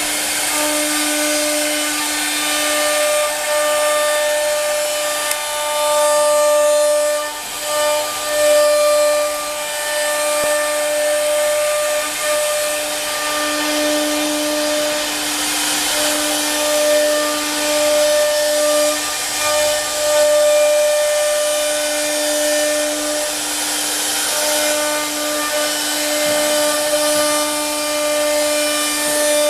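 The air-cooled spindle of a JCM-1325 CNC router runs with a steady high whine and layered overtones, over a continuous hiss of the bit cutting the workpiece. The level swells and dips slightly as the cut goes on.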